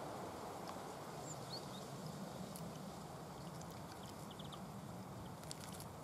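A great tit and a blue tit bathing in a shallow bird bath: small water flicks and splashes, with a quick run of them about five and a half seconds in, over a steady low background rush. A few faint high bird chirps about a second and a half in.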